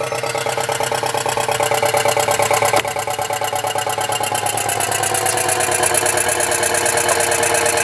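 Homemade vacuum pump running steadily with a fast, even pulse as it pulls a vacuum on a car's air-conditioning system to boil out moisture. A single click about three seconds in, and the pump's pitch sags slightly in the second half.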